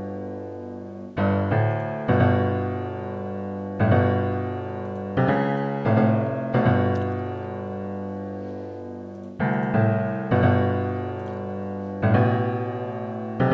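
Soloed piano track playing a riff of chords, each struck and left to ring and fade, with a new chord every one to two seconds.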